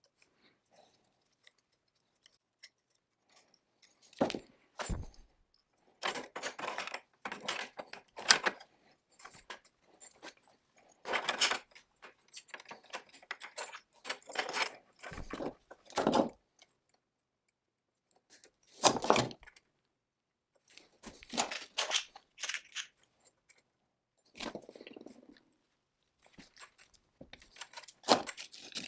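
Hands working on metal parts of a chainsaw: small clinks, rattles and scrapes of fittings, cable and a ratchet on a workbench, coming in irregular bunches with short silent pauses between.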